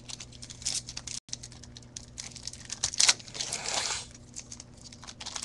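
Foil trading-card pack wrapper crinkling as it is torn open and the cards are handled, with a louder crinkle about three seconds in. A faint steady low hum runs underneath.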